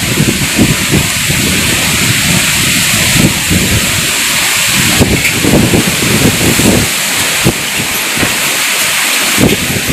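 Strong gusty wind: a steady, loud rushing hiss, with irregular low rumbling buffets of wind hitting the microphone.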